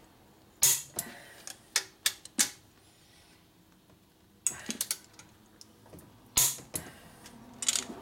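Click-type torque wrench pulling cylinder head bolts down to 65 foot-pounds: a string of sharp metallic clicks and ratchet ticks, loudest about half a second in, around two and a half seconds and around six and a half seconds in.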